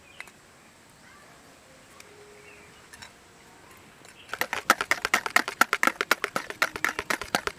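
Wire whisk beating eggs and sugar in a plastic bowl: a rapid, even clatter of strokes, several a second, starting about four seconds in. Before that, only a few light taps.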